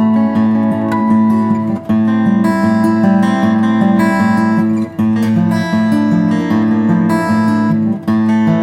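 Taylor GC acoustic guitar playing an instrumental piece, several notes ringing together, with brief breaks in the sound about two, five and eight seconds in.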